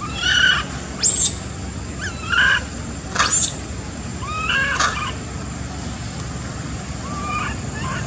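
Monkey calling: about six short, shrill cries and squeals, some bending up and down in pitch, over steady background noise.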